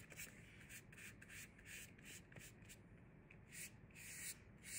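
Faint scratchy rubbing of a flat paintbrush's bristles dragged across paper, in a run of short back-and-forth strokes with a longer stroke about four seconds in.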